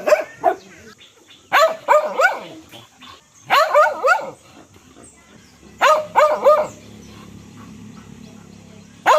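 A dog barking in quick runs of three or four barks, a run about every two seconds. Then comes a pause of about two seconds with a low steady hum, before the barking starts again at the very end.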